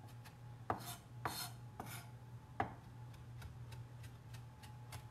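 Chef's knife mincing parsley on a cutting board: the blade knocks on the board irregularly, about one stroke every half second to second. The knocks are strongest in the first three seconds and fainter after, over a steady low hum.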